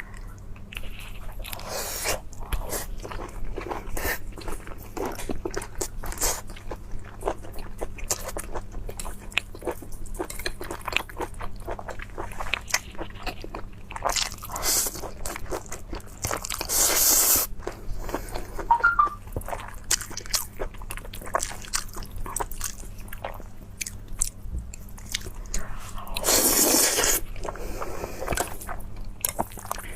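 Close-miked biting and chewing of abalone: a dense run of wet smacks and clicks of the mouth, with a few longer, louder bursts.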